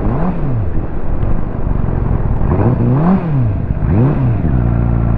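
Ducati motorcycle engine blipped up and down about three times, then settling to a steady idle; the bike has an intermittent misfire that had just made it stumble before clearing.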